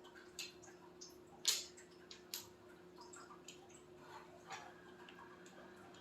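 Scattered light clicks and taps at irregular intervals, one sharper tap about a second and a half in, over a faint steady hum.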